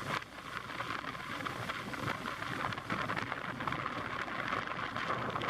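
Steady outdoor hiss of wind and surf, with fine crackling from wind on the microphone.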